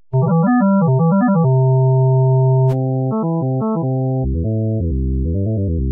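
Synthesizer tones from a Max/MSP wavetable oscillator played from a keyboard: a quick run of notes, then a held note. About two and a half seconds in, a click and a change of timbre come as the table's waveform switches from a square (rectangle) wave to a sawtooth. Short phrases and held notes follow, dropping lower near the end.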